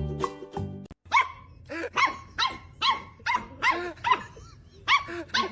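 Background music for about the first second, then a dog barking repeatedly, about two to three short, high-pitched barks a second.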